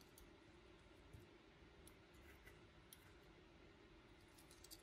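Near silence: quiet room tone with a few faint small clicks, a cluster of them near the end.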